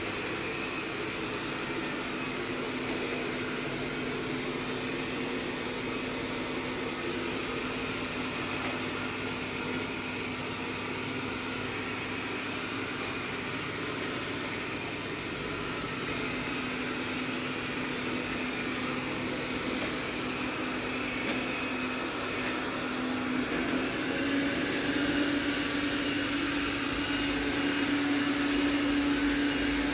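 Rowenta X-plorer Serie 60 robot vacuum running, a steady motor hum and whir. About three-quarters of the way through, its tone steps up slightly in pitch and the sound grows a little louder.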